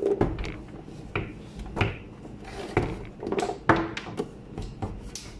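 A plastic blender motor base being handled and shifted on a countertop: a string of irregular knocks and clatters, the motor not running.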